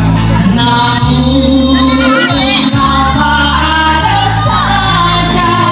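Live singers at a reception performing into microphones, amplified loudly through PA loudspeakers over a steady musical accompaniment.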